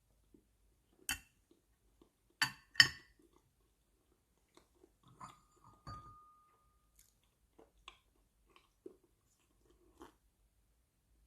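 Someone eating: a few sharp clinks of cutlery against a dish, one about six seconds in ringing briefly, with quiet chewing and small mouth sounds in between.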